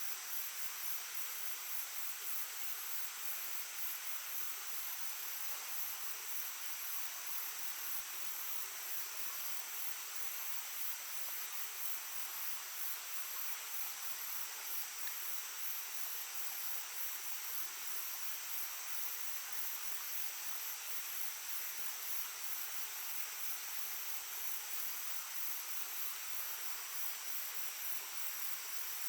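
Small stream babbling steadily, with a high, evenly pulsing trill of insects over it.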